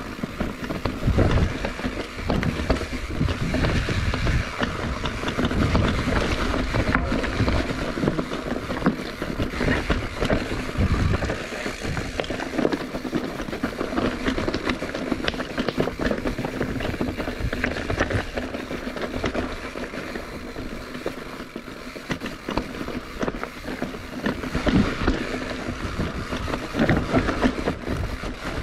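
Bicycle riding noise: tyres rolling and wind buffeting the microphone, a steady noisy rumble with gusty low surges.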